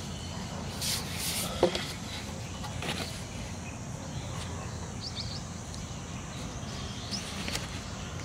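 Outdoor ambience: steady low background noise with a sharp click about a second and a half in and fainter handling clicks, then a few short, high chirps near the end.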